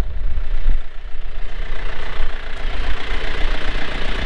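John Deere 4610 compact tractor's diesel engine idling steadily.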